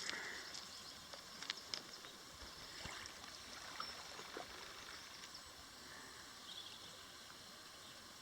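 Faint shoreline ambience: gentle water at the beach with a few soft clicks and knocks in the first few seconds.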